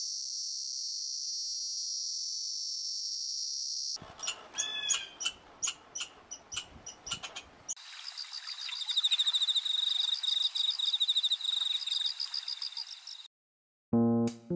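Cicada buzzing steadily and high for about four seconds. Then comes a cut to a stretch of sharp clicks and short chirps, and then a dense chorus of rapid, pulsing high chirps from a pond, which stops abruptly. Piano music begins just before the end.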